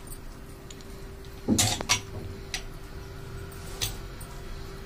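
A steel spoon clinking and scraping against a stainless steel mesh strainer as boiled noodles are tossed with oil, in a few scattered clinks, with a faint steady hum underneath.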